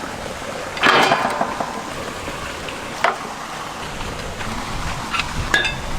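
Cooking sounds from a pot of chicken masala: stirring and scraping with a few sharp metal clinks over a steady hiss, the loudest scrape about a second in.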